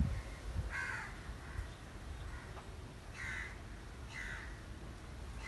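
Crows cawing in the background, about five short harsh caws spaced a second or so apart over a low steady background rumble.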